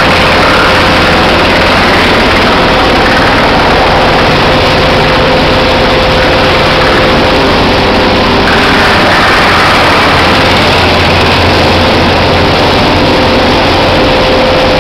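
Loud, steady din of industrial processing machinery running, with a constant mid-pitched whine over a low hum.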